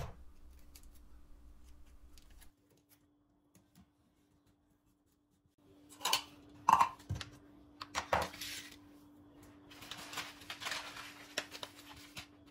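Clear plastic cups knocked and set down on a worktop, a few sharp taps about six to eight seconds in after a silent stretch. Paper seed packets rustle and crinkle near the end.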